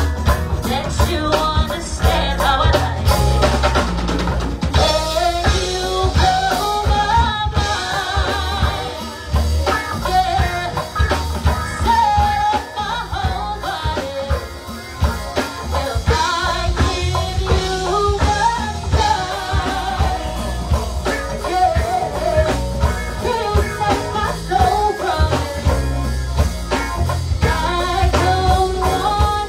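Live go-go band playing: drum kit and congas driving a steady beat under a heavy electric bass line, with a lead vocal singing over it.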